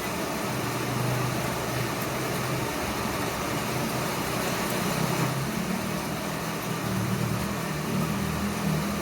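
Steady hiss of heavy rain, with a low, uneven rumble of strong wind underneath.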